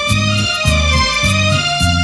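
Live band playing an instrumental passage with no singing: a sustained melody over keyboards, a repeating bass line and drums with light cymbal strokes.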